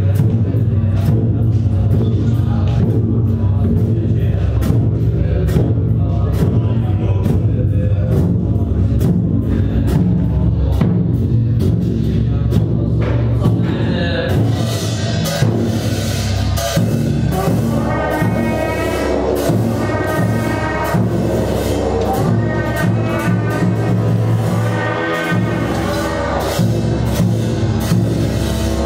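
Tibetan Buddhist monastic ritual music. A large frame drum is beaten in steady, regular strokes over a deep sustained drone, which cuts off suddenly about three-quarters of the way through. About halfway, a higher wavering melody joins in.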